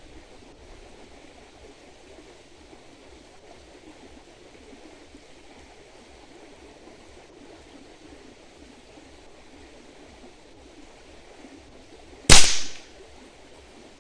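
A .22 PCP air rifle filled to 180 bar fires a single 36-grain slug: one sharp crack about twelve seconds in, dying away within half a second. Before it there is only a faint steady hiss.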